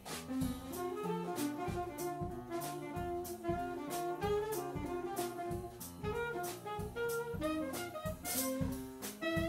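Live jazz: an alto saxophone plays a quick bebop melody line over upright piano and a drum kit keeping time on the cymbals.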